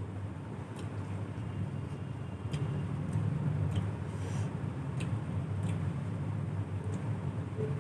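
Sparse eating sounds, a few short clicks and a brief crunch about four seconds in, over a steady low background rumble.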